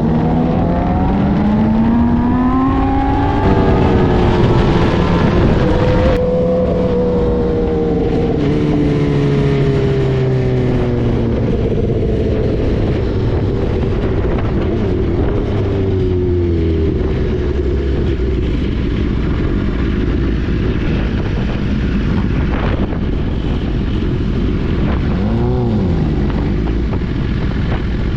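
Yamaha YZF-R6's inline-four with an Akrapovic exhaust, heard onboard: it revs up in a rising whine for the first few seconds, then its note falls steadily as the bike slows. Its note then fades under wind rush, with one short rev blip near the end.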